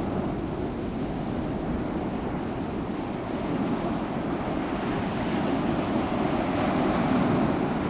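Sea waves washing ashore in a steady rush of surf, swelling gently towards the end.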